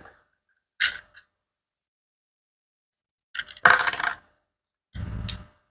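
Metal housing of a Kemei hair trimmer being prised apart by hand, its parts clicking and clinking against each other: one small click about a second in, a quick run of bright metallic clinks at about three and a half seconds, then a duller knock near the end.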